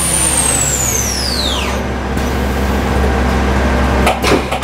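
CNC milling machine spindle spinning down after a finishing end-mill pass. Its high whine falls steadily over about two seconds, over a steady low hum and coolant spray. A few mechanical clunks come near the end as the machine changes to the next tool.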